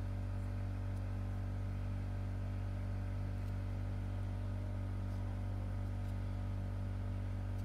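A steady low electrical hum, with a few faint clicks from a metal link watch bracelet being handled.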